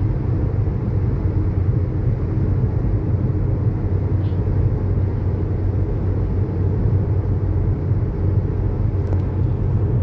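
Steady low rumble of a car driving along a road, engine and tyre noise with no changes in pace.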